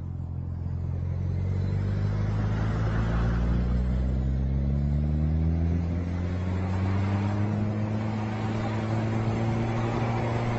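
Low-pitched vehicle engine running under load. Its pitch climbs steadily over several seconds, from about four seconds in, then holds.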